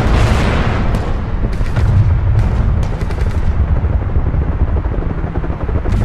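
Battle ambience sound effect: a dense low rumble of distant explosions and shelling, with scattered gunshots cracking through it, several in the first few seconds.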